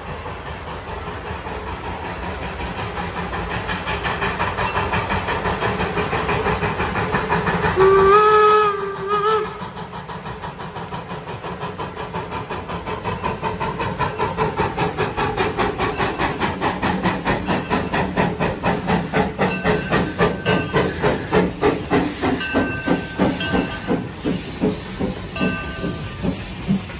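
Narrow-gauge steam locomotive No. 5 approaching under steam: a steady hiss of steam, one short whistle blast about eight seconds in, then exhaust chuffs at about two a second growing louder as it draws near.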